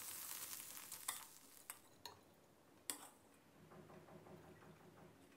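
Faint stir-frying in a stainless steel wok: a metal spatula tossing scrambled egg, with a light sizzle that fades out in the first second and a few sharp clicks of the spatula against the pan.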